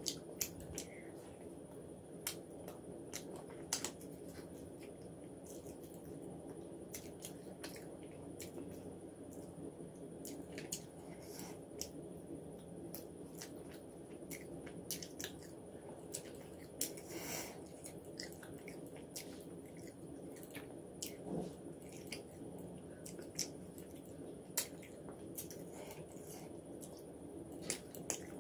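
Close-up chewing and wet mouth sounds of a person eating mixed fried rice and chicken by hand, with frequent small clicks and smacks, over a steady low hum.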